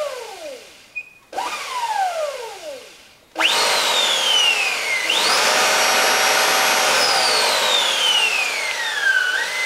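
Electric motorcycle's ME-1003 motor and Alltrax controller whining as the throttle is blipped and let off. The pitch jumps up and slides down as the motor coasts, twice in the first few seconds, then jumps sharply and falls. About halfway through it is held high for a couple of seconds, winds slowly down, and rises again at the end, with a steady rush from the running chain drive underneath.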